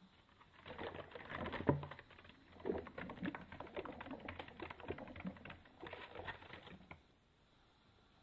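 Rapid, dry scratching and rustling at a pet degu. The clicks come in bouts from about half a second in, with a short lull around two seconds in, and stop about a second before the end.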